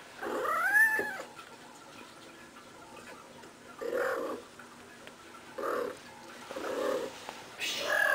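Domestic cat making a series of vocal calls: one longer meow that rises and falls in pitch about half a second in, then four shorter calls spaced a second or two apart.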